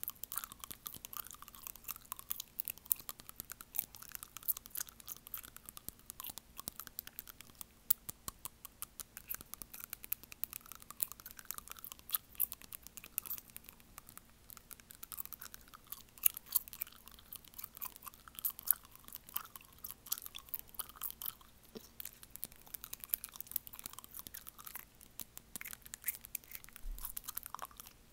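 Close-up clicking and crunching of teeth biting and prying at an acrylic fingernail, a rapid, irregular run of small sharp clicks right at the microphone.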